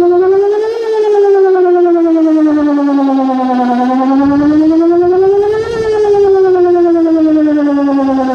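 Outdoor tornado warning siren sounding a test, a loud wail whose pitch rises and falls in a slow cycle of about five seconds.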